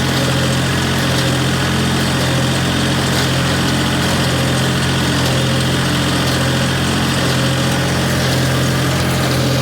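Case 385 tractor's engine running steadily at a constant speed while baling hay with a John Deere 14T baler.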